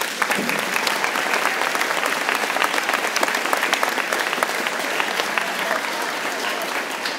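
Audience applauding: a crowd of many hands clapping at once, holding steady throughout.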